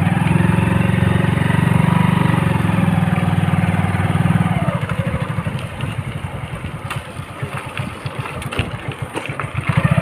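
Motorcycle engine running under a rider. It runs steadily for the first half, then the revs drop about halfway and it goes quieter with a pulsing beat.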